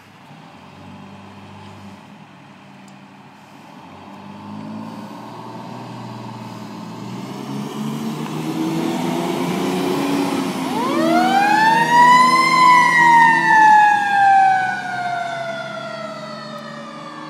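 Fire truck engine running and rising in pitch as the truck pulls away. About ten seconds in, a Federal Q2B mechanical siren winds up fast to a high wail, then slowly coasts down in pitch.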